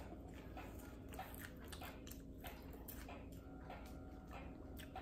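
Faint chewing of jalapeño popcorn, heard as soft, irregular crunches over quiet room tone.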